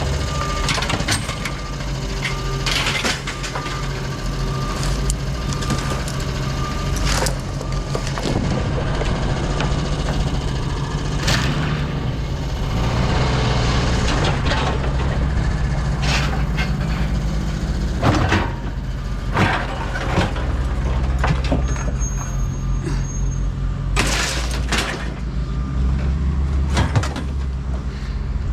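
A vehicle engine runs steadily under repeated sharp knocks and clanks, scattered through the whole stretch.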